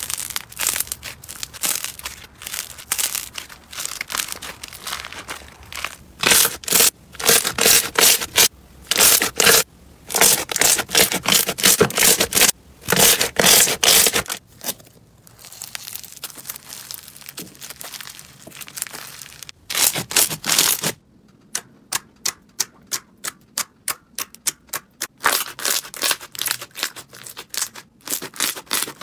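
Hands squeezing, pressing and working slime, giving dense clusters of crackles, pops and squelches. From about two-thirds of the way in there is a quick run of evenly spaced pops, about four a second.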